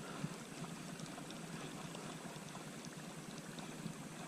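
Faint, steady outdoor background hiss with a few soft ticks and pops scattered through it.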